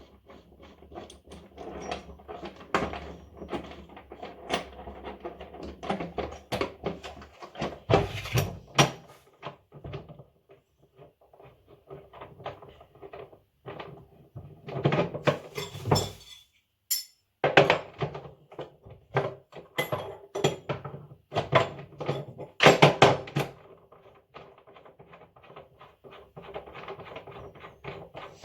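Hammer knocks and taps driving new ball bearings into the bearing seat of a Samsung washing machine's tub. They come in irregular runs, some quick and close together, with the loudest blows about a third of the way in and in the last third.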